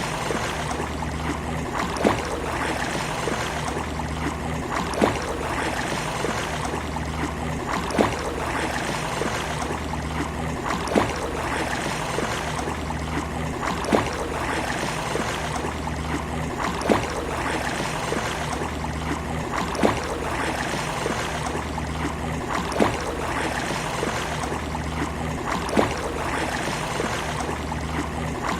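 Steady wash of sea waves on a beach, with a sharp click about every three seconds.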